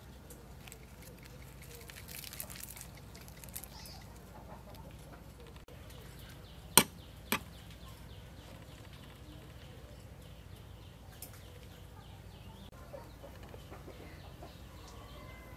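A metal fork clinking on a ceramic bowl: two sharp clicks about half a second apart, with a few fainter taps, over a faint low steady hum.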